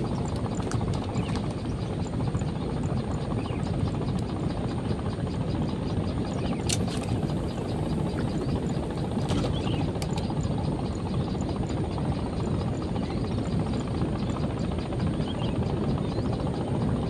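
Fishing reel being worked, a fast ratcheting click, over a steady low rushing background. A brief sharp swish about seven seconds in as the baited line is cast.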